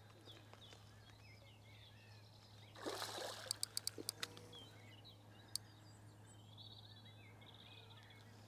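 A hooked tench splashing at the surface about three seconds in as it is played to the landing net, followed by a quick run of small sharp clicks. Faint birdsong throughout.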